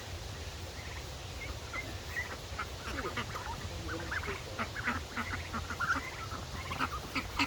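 A small flock of domestic ducks and turkeys calling, with many short quacks and calls overlapping one another.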